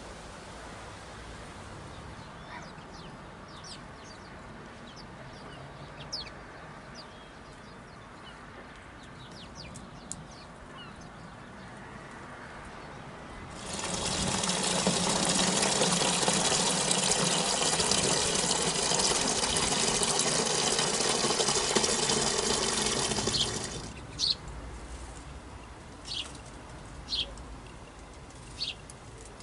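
Water pouring and splashing, loud and steady, from about fourteen seconds in for about ten seconds, then cutting off suddenly. Faint bird chirps come before it and a few short, sharp bird calls after it.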